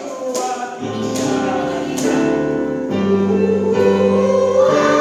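Church choir singing held chords that grow louder, with a few sharp percussive beats about once a second in the first two seconds.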